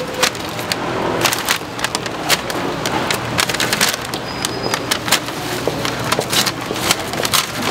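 Metal tongs clicking and crisp fried tempura crackling as pieces are picked up and dropped into a paper bag, with the bag's paper rustling: a quick, irregular run of sharp clicks and crackles.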